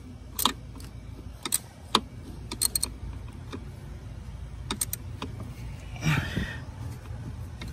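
Scattered sharp metal clicks of a ratchet and socket slowly working a spark plug loose, over a low steady hum. A short scraping rustle comes about six seconds in.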